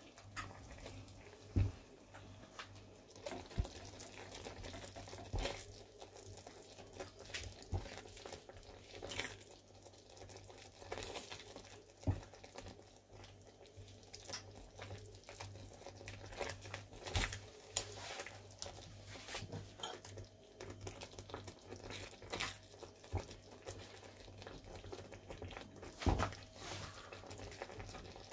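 A plastic spoon stirring gnocchi through a thick cream sauce in a non-stick frying pan: irregular scrapes and knocks of the spoon against the pan, over a low steady hum.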